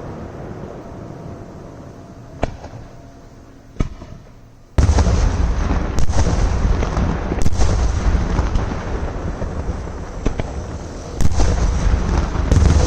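Fireworks display: two sharp bangs over a fading rumble, then about five seconds in a sudden loud barrage of explosions and crackle that keeps going, with single bangs standing out above it.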